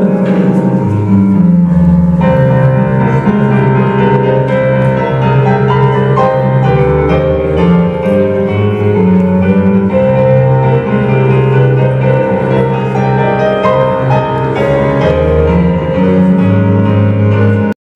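Piano-voiced Korg digital keyboard played solo: slow held chords over low bass notes. It cuts off abruptly just before the end.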